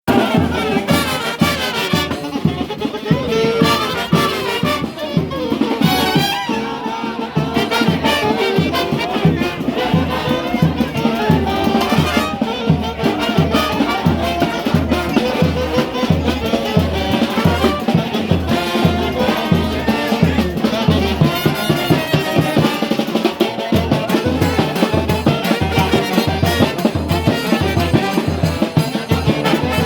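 Brass orchestra playing: trumpets and trombones carrying the tune over a steady, fast drum beat.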